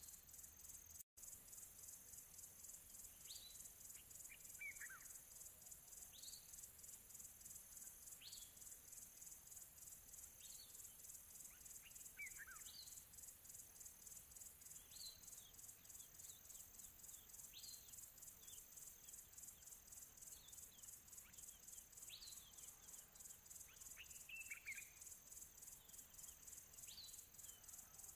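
Near silence with a faint, steady high-pitched chirring and a short falling chirp about every two seconds.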